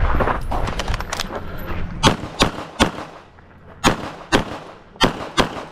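Pistol shots fired in quick strings. Three shots come about two seconds in, then a pair, then another pair, each shot a sharp crack with a short echo.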